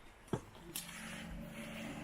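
A short knock, then a steady low motor hum that sets in about half a second later and holds on.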